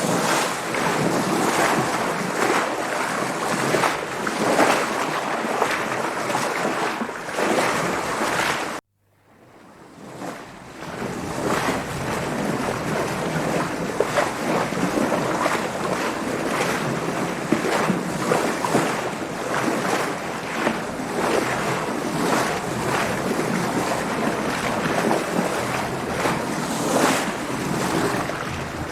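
Sailboat under way in waves: water splashing and slapping in a continuous wash, with wind. The sound cuts out suddenly about nine seconds in and fades back up over the next two seconds.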